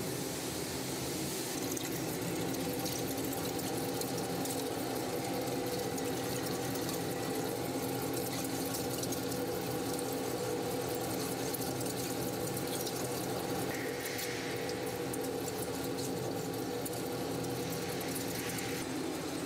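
Steady machinery noise in a machining hall: a constant hum with a few steady tones over an even hiss.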